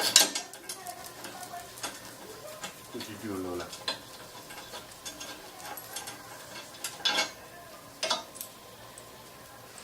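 Hand tools working the bolts of a golf cart's roof support: scattered metallic clicks and clinks, the loudest right at the start, and a short squeak about three seconds in.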